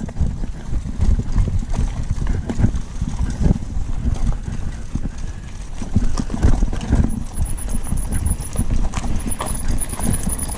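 Bicycle rattling and knocking over a rough gravel track in a dense, uneven clatter, with rumble from wind on the microphone.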